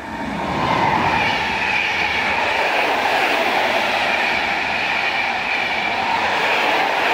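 An Intercity passenger train hauled by a Newag Griffin EU160 electric locomotive passing close by at speed. Its coaches give a steady rush of wheels on rail, with a constant high whine over it, swelling to full loudness in the first second.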